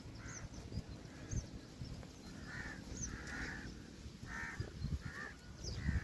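Crows cawing, a string of harsh calls about one a second, the longest a little past the middle, with short thin chirps of small birds higher above.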